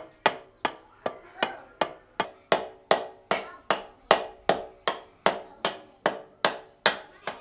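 Steady, even hammer blows in woodworking, about two and a half strikes a second, each with a short ring; they stop near the end.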